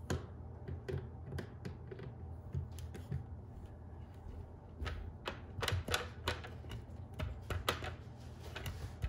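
Sharp plastic clicks and taps from handling a dog door's plastic flap and frame, coming in quick clusters and thickest in the second half. A steady low hum runs underneath.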